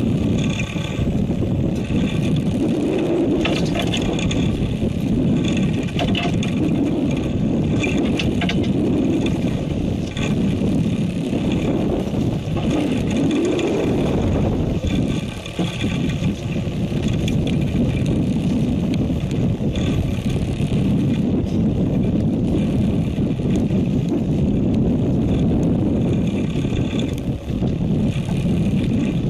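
Steady rumble and wash of a fishing boat at sea: engine and water noise with wind on the microphone.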